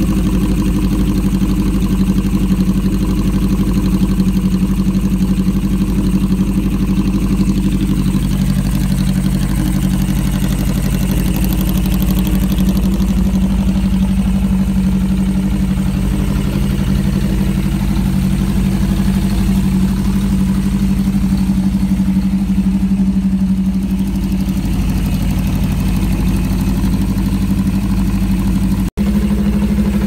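Honda CB550's air-cooled inline-four idling steadily through an aftermarket Moto GP Werks exhaust. The sound drops out for an instant near the end, then the idle carries on.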